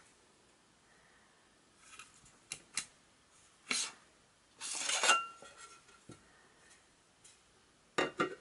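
Metal case of a Xiaomi Mijia electric screwdriver set being handled: a few light clicks, then the bit tray sliding out of its aluminium sleeve with a scrape that ends in a brief ringing clink about five seconds in, and a quick cluster of knocks near the end.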